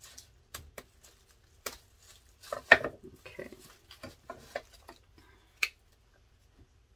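Craft material being cut in half and handled on a work table: scattered short clicks and brief rustles, busiest about three seconds in.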